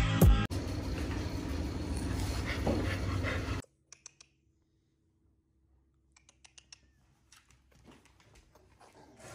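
Music cuts off, then a steady hiss for about three seconds. It then drops to a faint low hum with a few light ticks and shuffles from a dog's claws moving on a hardwood floor.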